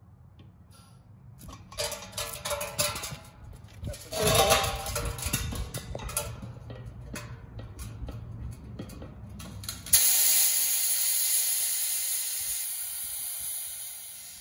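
Beer keg's valve held pressed open to vent the gas inside: first a rough sputtering and spitting from the valve, then about ten seconds in a loud hiss of escaping gas starts suddenly and fades away as the pressure runs out.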